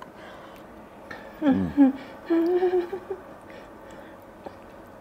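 A person humming with closed lips over a mouthful of food: a short falling 'hmm' about a second and a half in, then a held 'mmm' just after two seconds.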